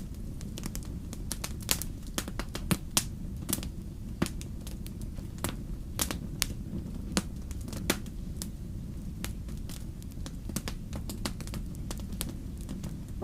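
Wood fire crackling: irregular sharp pops and snaps of burning wood over a low, steady rumble of flame.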